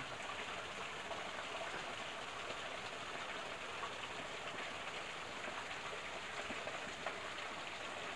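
Steady hiss of water.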